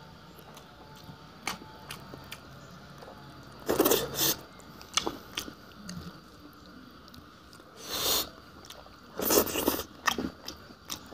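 A person eating close to the microphone: scattered wet clicks of chewing and biting, with a few louder noisy bursts of mouth sound.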